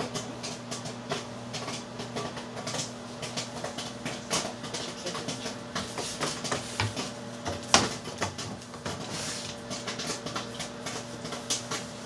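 LG dishwasher running mid-cycle: a steady low hum with many irregular ticks and clicks, one sharper click about eight seconds in.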